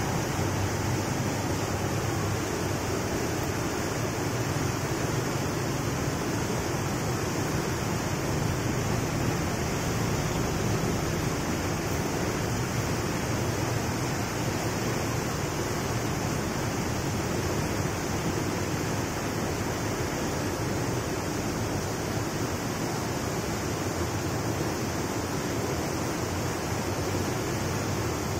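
Fast, muddy white water rushing and churning out from under a concrete bridge in a steady, unbroken wash of noise.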